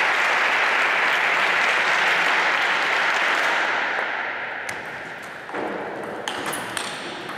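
Spectators applauding, dying away over about four seconds. A table tennis rally then starts, the ball clicking sharply off bats and table several times.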